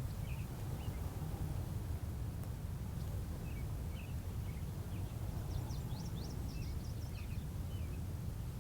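Birds chirping in short, scattered calls over a steady low rumble, with a quick flurry of higher chirps about six seconds in.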